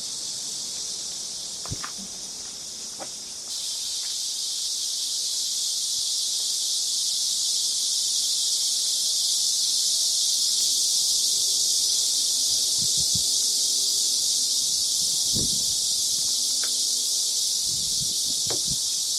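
A steady, shrill chorus of insects that gets louder about three and a half seconds in, with a few faint knocks and thuds underneath.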